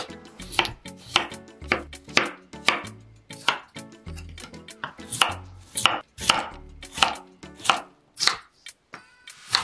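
Kitchen knife chopping peeled raw potatoes on a wooden cutting board: a steady run of sharp knocks as the blade goes through and strikes the board, about two cuts a second.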